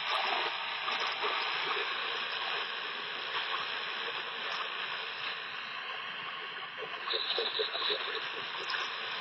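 Steady shortwave static hiss from a County Comm GP-5DSP portable radio's speaker, tuned to WWV on 10 MHz with no time-signal clicks coming through. The owner puts this down either to the portable's weaker reception or to computer noise picked up on an unshielded antenna lead.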